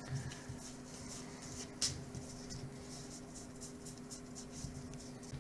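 A stack of paper baseball cards being shuffled through by hand: card edges sliding and flicking against each other in soft, quick ticks, with one sharper flick about two seconds in.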